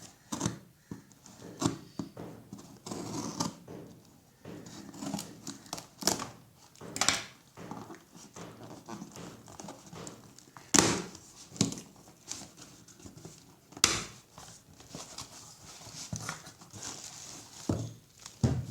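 A boxed power bank's retail packaging being handled and turned over: irregular rustling and crinkling with sharp taps and clicks against the box.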